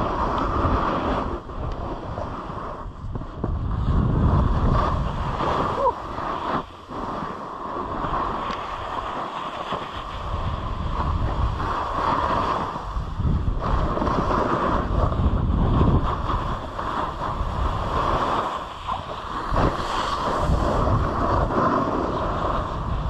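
Snowboard sliding and carving over chopped-up snow, a rough scraping rush that swells and eases with each turn, mixed with wind buffeting the microphone.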